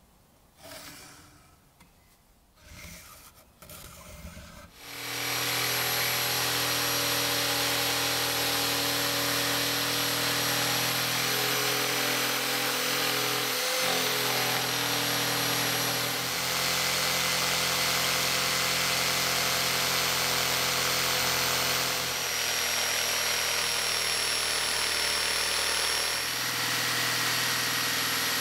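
Quiet small handling sounds, then an electric jigsaw starts about five seconds in and runs steadily, its blade cutting along a wooden board. Its note shifts slightly a few times as the cut goes on.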